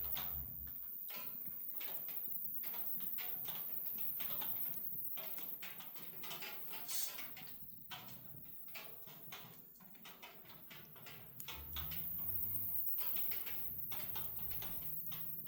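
Wood fire crackling, with many small sharp pops and snaps close together; it eases off somewhat a little past the middle and picks up again near the end.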